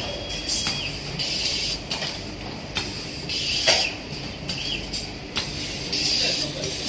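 Tabletop coordinate-type automatic screw-locking machine running. Its axis motors give short whines that rise, hold and fall as the screw head moves between positions, about four times, amid short hisses and clicks from the screwdriving and suction feed.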